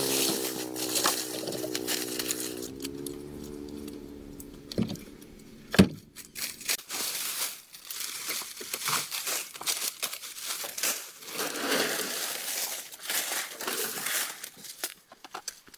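Irregular rustling and crinkling with scattered clicks and a sharp knock about six seconds in, like material or objects being handled. A steady pitched tone fades out about three seconds in.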